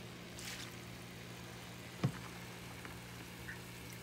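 A steady low hum like a small motor running, with a faint brief rustle near the start and one short knock about two seconds in.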